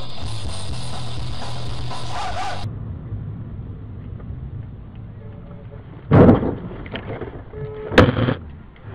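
Dashcam audio of a car collision: two loud sudden impacts about two seconds apart, a heavy thump followed by a sharper bang, over lower steady road noise. Before them, a louder steady sound cuts off abruptly under three seconds in, at a cut between clips.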